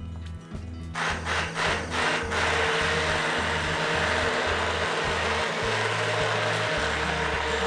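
Immersion blender switched on in a few short bursts about a second in, then running steadily as it purees chunky peach and habanero sauce in a cast-iron pot. Background music with a steady bass beat plays underneath.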